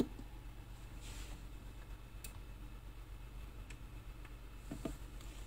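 Small tactile pushbuttons on a breadboard pressed by hand, giving a few faint, unevenly spaced clicks over a low steady hum.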